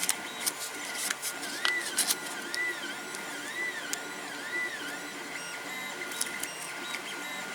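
3D printer running, its stepper motors whining in repeated rising-and-falling sweeps as the print head moves back and forth, over a steady tone, with scattered light clicks.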